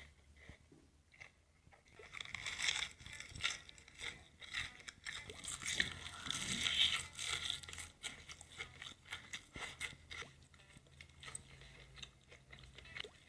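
Close-miked crunching and chewing of food, a dense crackle of bites loudest from about two to eight seconds in, then quieter, sparser chewing.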